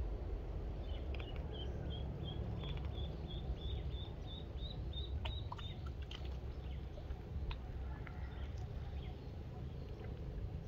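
Duckling peeping in a steady run of short high chirps, about two to three a second, rising slightly in pitch and stopping about six seconds in. A few sharp clicks come around the middle.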